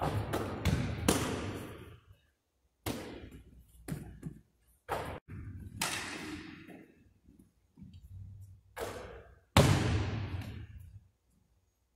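A basketball thudding on a hardwood gym floor and banging off the backboard and rim during shooting practice, about eight irregular impacts, each ringing out in the big gym's echo; the loudest comes near the end.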